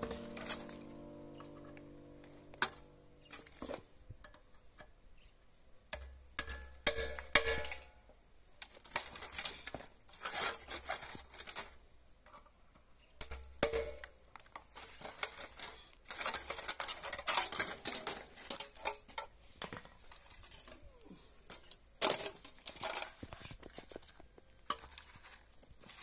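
Irregular workshop handling noise from working on an old electric water heater's tank: scraping, crinkling and light metal clatter, with a sharp knock every few seconds.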